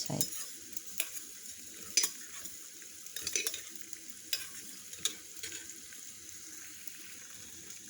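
Double boiler melting beeswax pellets into coconut oil: a faint steady sizzle with irregular light clicks and taps, about one a second.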